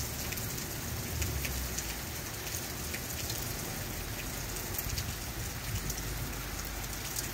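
Heavy rain falling steadily on a flooded road and lawns: an even hiss with scattered sharp drip ticks.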